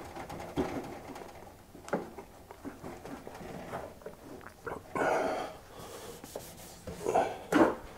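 Quiet handling sounds of cups and counter gear being set out: scattered light clicks and knocks, with a short rustle about five seconds in.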